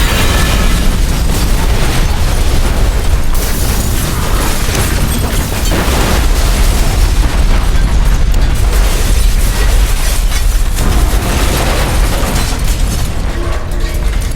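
Loud, drawn-out explosion sound effect: a continuous heavy rumble with crackle across the whole range, easing off slightly near the end.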